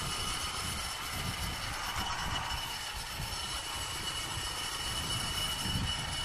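Yamaha YBR 125's single-cylinder four-stroke engine running through an aftermarket bullet pipe with a silencer insert while riding, a steady exhaust and engine note mixed with uneven low wind rumble on the microphone.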